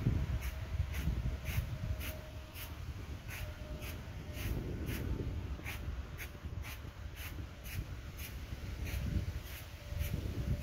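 Outdoor background: an uneven low rumble, with a faint high chirping repeating steadily about twice a second throughout.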